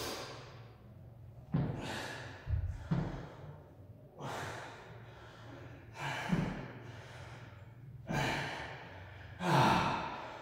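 A man breathing hard while pressing heavy dumbbells: forceful exhalations and gasps, about every one to two seconds.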